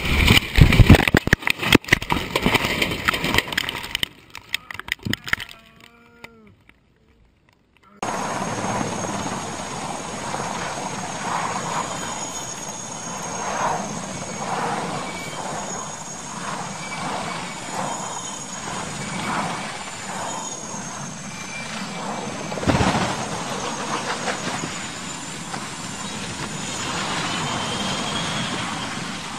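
Loud jarring crashes and rattling inside a small plane's cockpit as it hits the ground, dying away after about four seconds into a few seconds of near silence. Then a tandem-rotor helicopter's steady noise mixed with voices, with a single heavy thump about two-thirds of the way through as it comes down.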